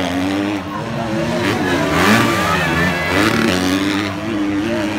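Motocross dirt bike engines revving hard, more than one bike, their pitch rising and falling over and over as the riders accelerate and let off through the track.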